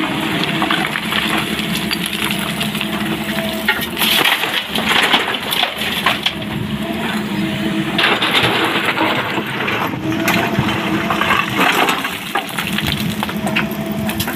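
SANY hydraulic excavator digging into a pile of broken quarry stone. Its diesel engine runs steadily under load while the steel bucket scrapes through the rock, and the stones clatter and grind in repeated bursts a few seconds apart.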